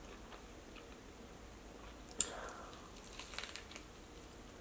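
Close-up eating sounds of biting into a meatball slider with baked spaghetti buns: one sharp click about two seconds in, then a quick flurry of small crunchy clicks.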